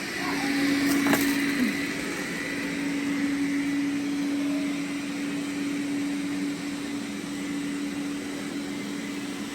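Robot vacuum running with a steady hum and whir. A single sharp click about a second in.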